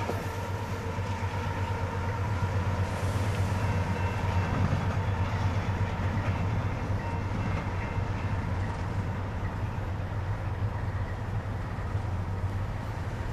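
A Canadian Pacific freight train of grain hopper cars rolling by: a steady rumble of wheels on the rails over a low diesel locomotive drone, easing slightly toward the end.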